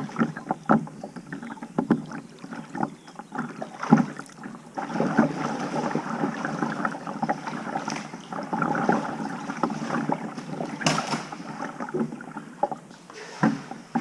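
Water splashing and lapping around a kayak, with irregular knocks and clicks, and a louder knock about eleven seconds in.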